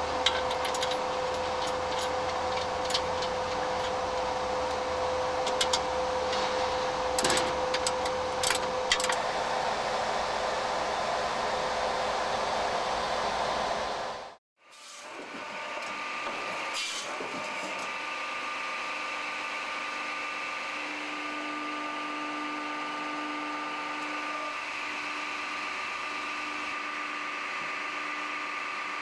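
A firewood processor running with a steady machine hum, with scattered metallic clicks and knocks in the first half as the steel splitting wedge is adjusted by hand. After a brief cut to silence about halfway through, a different, quieter steady machine hum with a few held tones.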